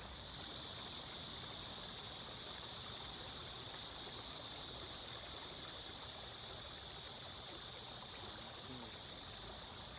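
Water rushing steadily over a small waterfall or weir, an unbroken hissing noise that makes the recording noisy.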